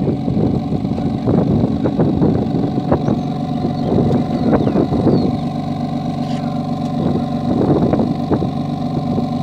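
BMW M3 Competition's S55 twin-turbo inline-six idling through a performance exhaust: a steady burble broken by irregular short pops and crackles.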